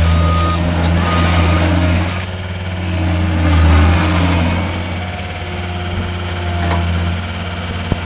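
Deere 329D compact track loader's diesel engine running, with its backup alarm beeping about once a second for the first second and a half before it stops. The engine swells louder a little after the middle, then settles to a lower, steady idle, with a short knock near the end.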